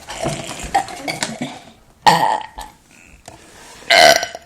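Deliberate burps for a contest: a loud burp about two seconds in and a louder one near the end.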